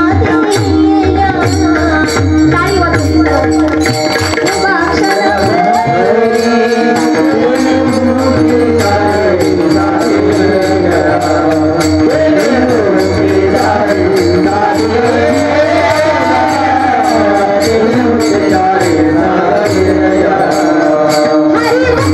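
A woman singing a Marathi devotional kirtan melody into a microphone, accompanied by small brass hand cymbals (taal) striking a steady beat, with drum and a held drone underneath.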